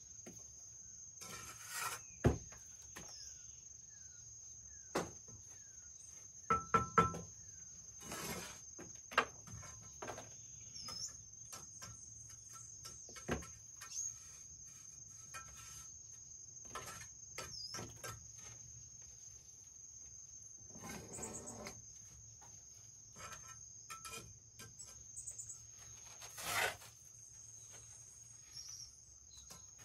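Scattered scrapes and knocks of a mason's trowel working mortar against brick, a few strikes ringing briefly like metal, over the steady high drone of insects.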